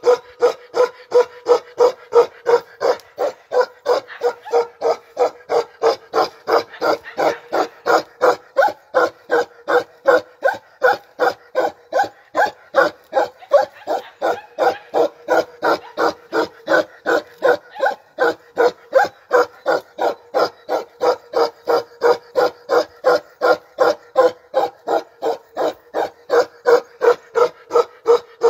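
Bakarwal dog barking over and over in an even, unbroken rhythm, about two to three barks a second, every bark at the same pitch.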